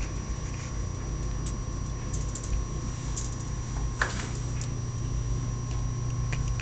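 Scattered light clicks and scratches from pet rats scurrying about a wire cage, the sharpest about four seconds in, over a steady low hum.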